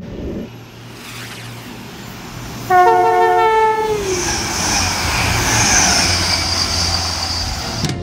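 Class 180 diesel multiple unit sounding its horn once, briefly: two notes, the higher one starting just after the lower, outlasting it and dropping in pitch as it ends. Around it the train runs past with a steady rumble and a high hiss of wheels on rail.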